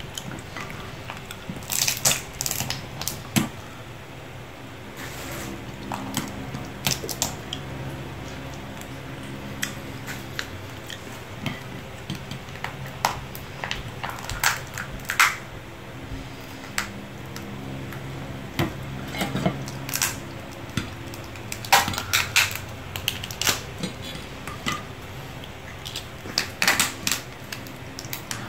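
Cooked lobster shell cracking and snapping as it is broken apart by hand, in scattered sharp cracks, busiest about two seconds in, around the middle, and again near the end.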